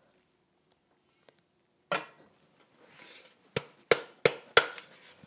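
Thermomix stainless-steel mixing bowl being knocked to shake out grated Parmesan: a single knock, a short scraping rustle, then four sharp knocks about a third of a second apart.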